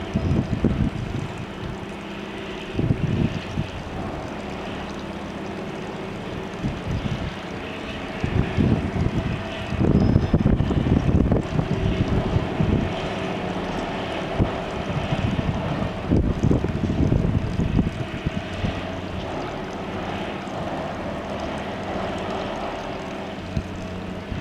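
Diesel engine of a multiple tie tamper, a railway track tamping machine, running steadily with a constant hum, broken every few seconds by louder low rumbling surges.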